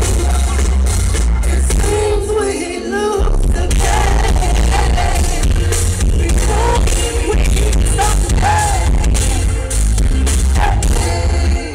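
Live band playing with a woman singing lead, heard from the audience, with a heavy bass.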